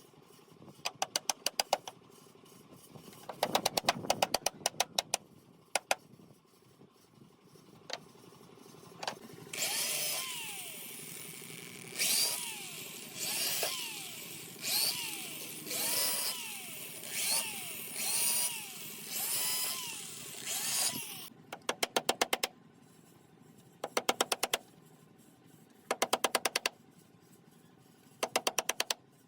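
Power tools working wood: short bursts of rapid clicking. In the middle comes a run of about nine repeated strokes, each with a pitch that rises and falls over a hiss.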